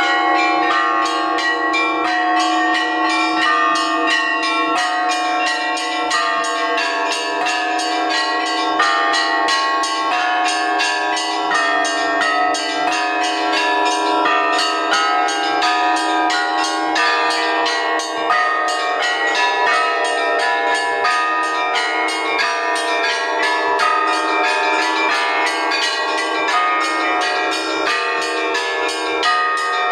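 Russian Orthodox church bells rung by hand in a continuous peal: many bells struck in quick, unbroken succession, higher bells chiming rapidly over steady mid-pitched ones.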